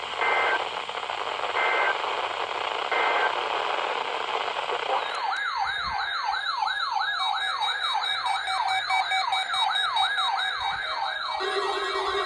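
NOAA Weather Radio test heard through a receiver with radio hiss: three short two-pitch data bursts, the SAME header that triggers alert radios. About five seconds in, weather alert radios (Midland WR-100s) start their alarm, a rapid repeating rising warble, and near the end a steady lower tone joins it.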